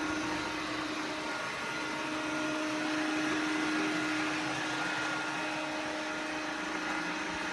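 Samsung POWERbot robot vacuum running: a steady whirring hum from its suction motor, with a constant pitched tone and an even rushing air noise.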